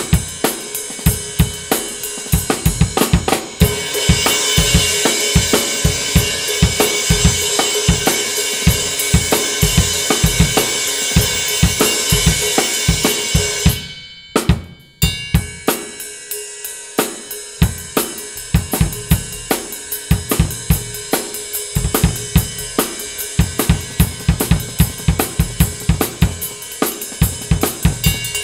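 Drum kit played with sticks, kick and snare under a Zildjian S Rock Ride 20-inch, a thick, heavy cymbal with a loud, piercing ping. About four seconds in the cymbal builds into a dense, steady wash. It stops for a moment about 14 seconds in, then a new groove with the ride starts.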